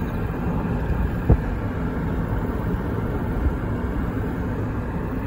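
Car driving along a road, heard from inside the cabin: a steady low rumble of road and engine noise, with one short thump about a second in.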